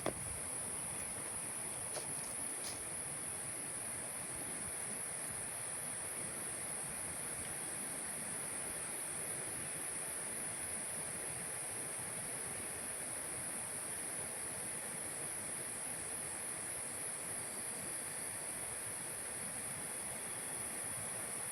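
Steady, very high-pitched chorus of insects, a continuous shrill buzz that never breaks, over a soft, even forest background hiss.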